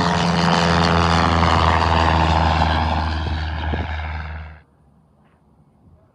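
Small propeller plane's engine and propeller running loud at go-around power as it passes; the sound cuts off abruptly about four and a half seconds in, leaving only faint background.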